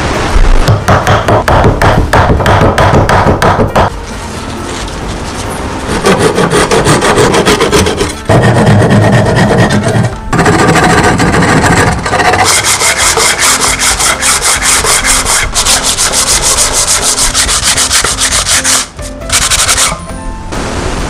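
Rapid back-and-forth strokes of a fine-toothed hand saw cutting through wood, trimming wooden dowels flush with an old board. The strokes come in several runs with short breaks between them.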